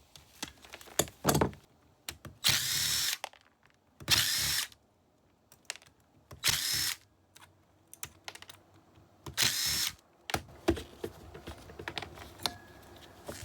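A power drill runs in four short bursts of well under a second each, with sharp clicks and knocks of hand tools and metal parts between them.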